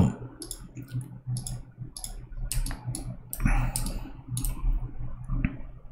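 Scattered computer mouse and keyboard clicks at an irregular pace, with a low steady hum underneath.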